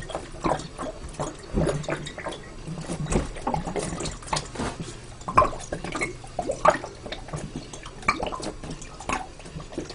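Vodka glugging out of an upended glass bottle as a man chugs it, with a quick, irregular run of gulping swallows.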